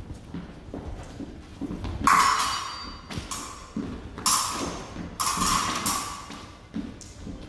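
Épée blades striking each other with a bright metallic ring, several times, between light footwork stamps and thuds of fencing shoes on a wooden floor.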